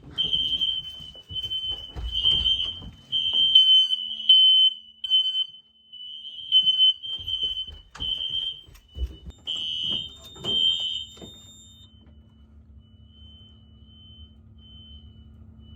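Home smoke alarms sounding together, their high-pitched beeps overlapping out of step. They have been set off through a relay module by a fire alarm panel in alarm. After about 11 seconds the beeping turns fainter and sparser.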